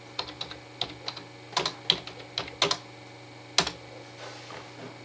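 Irregular clicks of a computer keyboard and mouse, about a dozen in the first few seconds, the loudest about three and a half seconds in.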